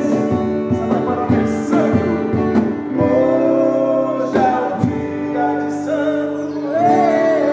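Pop rock song playing: singing with long held notes over guitar and other instruments.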